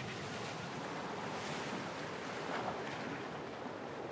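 Surf washing onto a beach: a steady hiss of breaking waves with a little wind, swelling briefly about a second and a half in.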